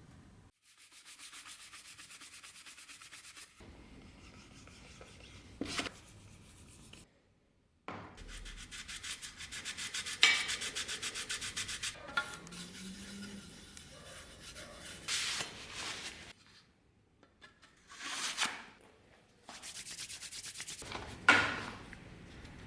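Rapid, even rubbing strokes of hand work on the knife, in several short cut-together passages, with a few sharp knocks between them.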